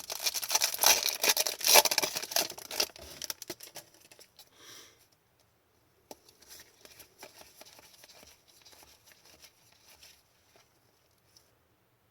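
Trading-card pack wrapper crinkling and tearing, dense and crackly for about three and a half seconds. After that come faint light taps and slides of cards being handled.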